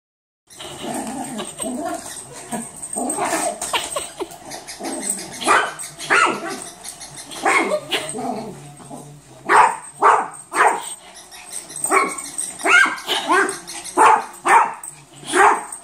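Yorkshire terrier barking at a robot toy, in short sharp yaps that come in quick runs and grow more frequent from about five seconds in.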